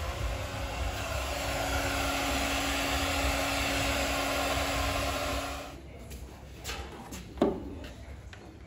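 Heat gun blowing steadily with a constant hum, switched off a little after halfway. Then come a few sharp knocks and clicks, one much louder than the rest.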